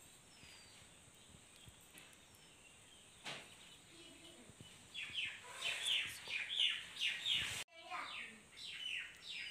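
A bird chirping: a quick run of short chirps, each falling in pitch, starting about halfway through, broken by a sudden cut and then going on.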